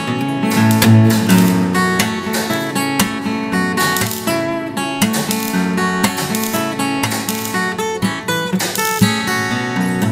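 Background music: a solo acoustic guitar, plucked and strummed.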